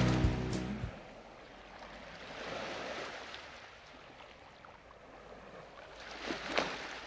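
Music ends in the first second, leaving a quiet wash of sea water that swells and eases like waves, with a few faint knocks about six and a half seconds in.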